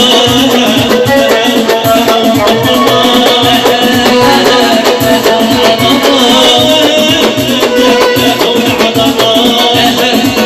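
Korg arranger keyboard playing an upbeat song with a busy shaker-and-drum rhythm accompaniment, loud and steady.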